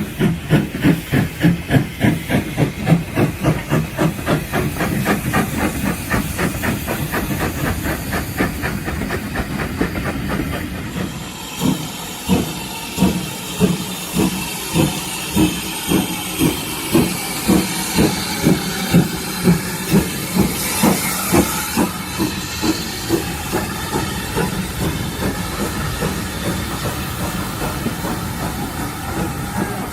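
Steam locomotive working, with rhythmic chuffing exhaust beats over a steady hiss of steam. The beats come about three a second at first; about a third of the way in they change to slower, heavier beats.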